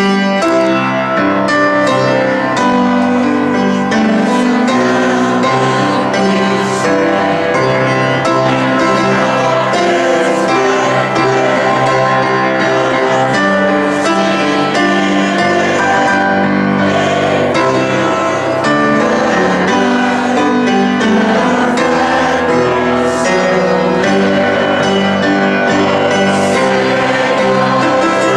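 Large choir of older amateur voices singing a patriotic song, with piano accompaniment.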